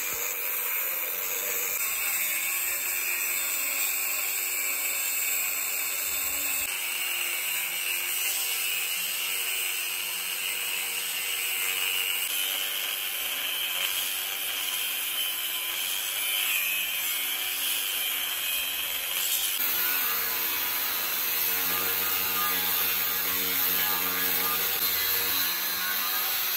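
Angle grinder with a cut-off disc cutting through steel angle iron: a steady high whine over a harsh grinding hiss, its tone shifting abruptly twice.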